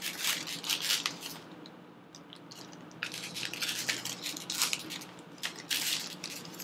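Thin clear plastic film and screen-protector sheets crinkling and crackling in the hands as they are unwrapped, in several short bursts with a quieter pause about two seconds in.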